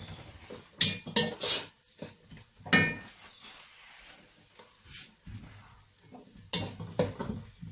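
Wooden spoon stirring vegetables in a non-stick pot, with several sharp knocks and clinks against the pot, one ringing briefly.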